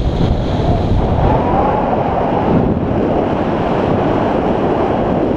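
Wind rushing over an action camera's microphone on a paraglider in flight, a loud, steady roar of airflow.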